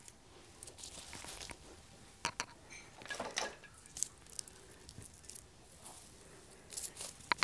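Faint rustling and scattered soft clicks of artificial evergreen stems and the plastic branches of an artificial Christmas tree being handled, the stems pushed in among the branches.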